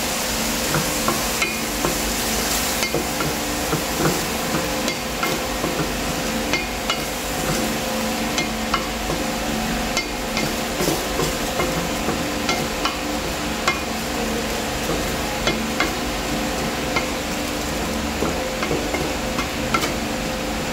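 Mushrooms and oyster sauce sizzling in a stainless steel pan while a wooden spatula stirs them, with frequent light scrapes and knocks of the spatula against the pan.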